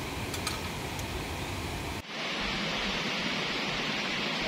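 Steady rushing of a shallow rocky river, with a couple of light clicks in the first half second. About two seconds in the sound switches abruptly to a brighter, steady hiss.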